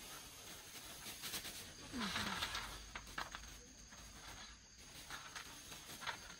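Plastic bags rustling and dry puffed corn sticks crackling as they are scooped by hand from a large sack into a small plastic bag, in irregular bursts, loudest about two seconds in.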